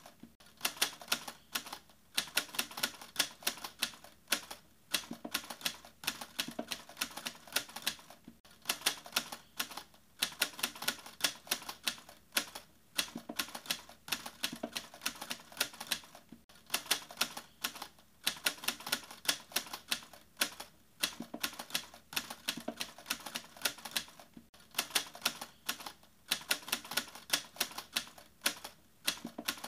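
Fast, continuous typing clicks with a typewriter-like clatter, breaking off briefly about every four seconds.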